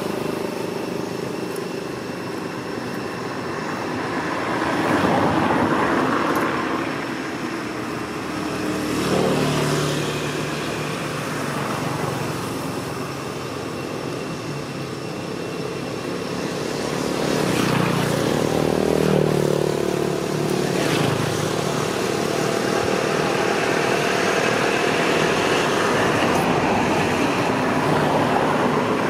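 Motor vehicle engines passing, a hum that swells and fades several times over a steady background hiss, busiest in the second half.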